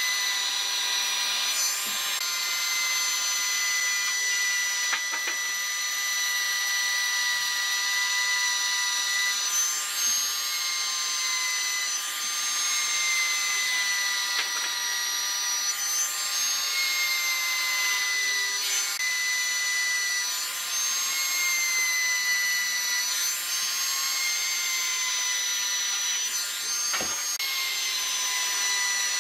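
Compact trim router running at full speed with a steady high whine, routing shallow freehand grooves into wood. Its pitch dips briefly several times as the bit bites into the cut.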